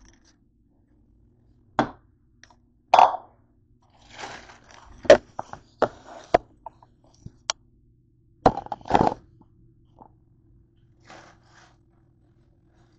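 Kitchen handling noises: a bowl and other things knocked and set down on a countertop, giving a series of sharp knocks and clunks with some rustling between them. A faint steady hum runs underneath.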